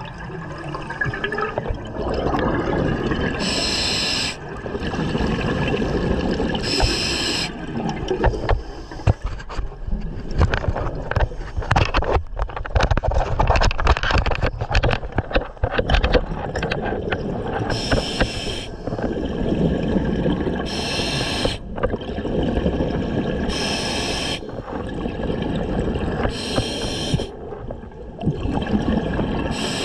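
Scuba diver breathing through a regulator underwater. Each exhalation is a bubbly hiss about a second long, coming roughly every three seconds, over a low rush of water. In the middle there is a stretch of rapid knocks and clatter.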